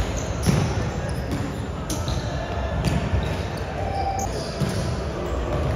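A football thudding irregularly as it is kicked and bounced during play, with indistinct voices in the background.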